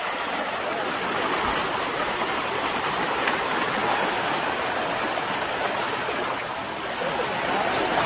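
River water rushing steadily, a constant even hiss of fast-flowing current.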